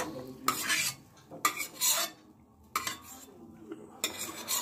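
Metal spoon scraping the inside of a stainless-steel kadai as the last pieces of fried chicken and potato are scooped out: about five short scrapes, roughly a second apart.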